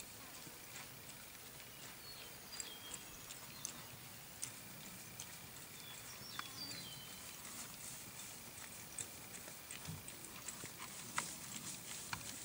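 Saddled sorrel tobiano filly walking on grass: faint, irregular hoof falls with light clicks.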